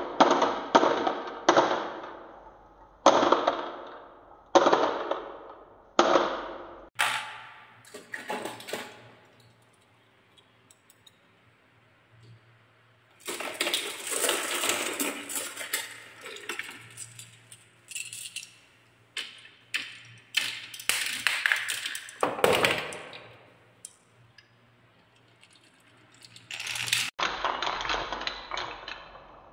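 Glass marbles rolling and clattering down wooden marble-run tracks, a wavy slope and a spiral, in a series of bursts that each start sharply and die away, with a quiet pause about ten seconds in.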